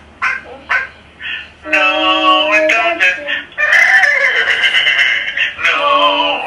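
A person imitating animal calls in a children's sing-along: three short 'arf' barks like a dog, then a long whinnying 'neigh' like a horse, followed by a sung line.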